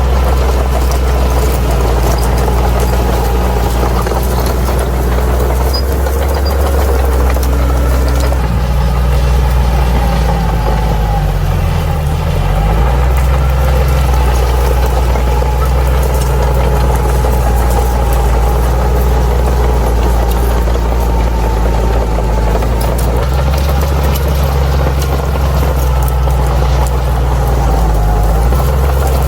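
Bulldozer diesel engine running steadily under load. About twelve seconds in, its pitch dips briefly and comes back up.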